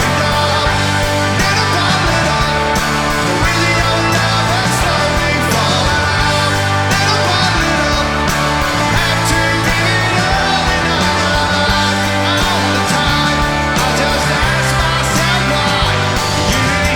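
Live rock band playing a song, with electric guitars, bass and drums, loud and steady throughout.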